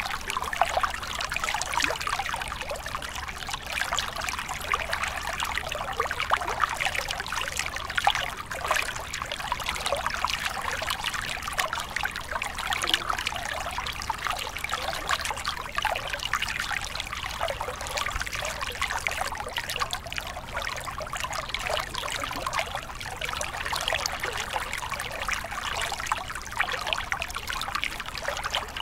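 Small mountain stream spilling over rocks in a short cascade into a pool: a steady babble of running water full of small splashes and gurgles.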